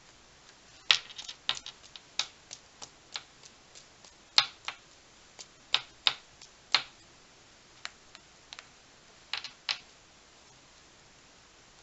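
A paintbrush tapped again and again to flick white paint specks onto a watercolor page: some two dozen sharp clicks in irregular runs, the loudest about a second in and again near the middle, stopping about two seconds before the end.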